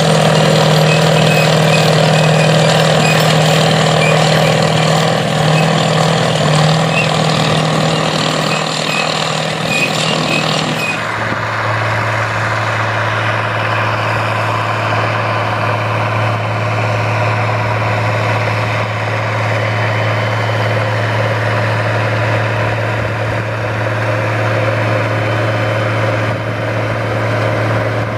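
Diesel engine of an International Harvester four-wheel-drive tractor running steadily under load while pulling a tillage implement. About eleven seconds in, the sound cuts to an International Harvester 3788 2+2 tractor's diesel pulling a planter, with a lower, steady engine note.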